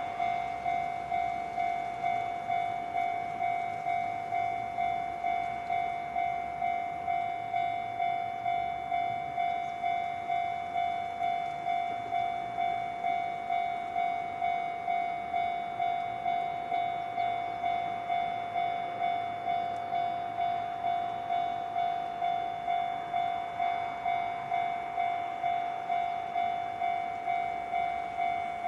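Japanese level crossing warning bell ringing in a steady, even ding-ding rhythm, about three strikes every two seconds: the crossing is closed for an approaching train.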